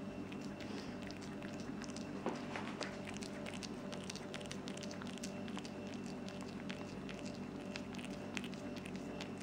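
Cat licking and chewing at a boiled potato: many small wet clicks and smacks, a couple slightly louder, over a steady background hum.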